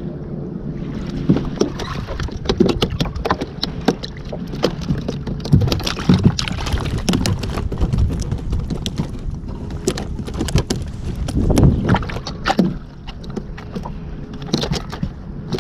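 Irregular knocks, clicks and rattles of gear being handled against the plastic hull of a pedal kayak as hands work down by the pedal drive and deck hatch.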